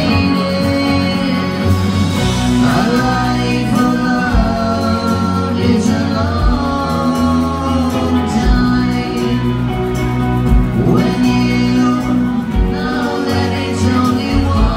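Live rock band playing a song: a vocalist singing over electric guitars and drums with a steady low drum beat, heard loud from among the audience in a concert hall.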